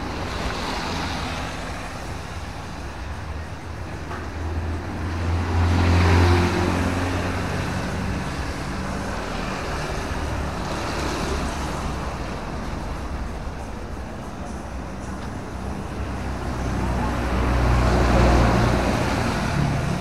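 Road traffic on a wet street: motorbikes and cars driving past, their tyres hissing on the wet tarmac over engine noise. Two passes stand out, one about six seconds in and a longer one near the end.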